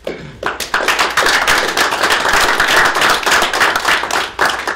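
Audience applauding: many people clapping, starting suddenly and beginning to thin out near the end.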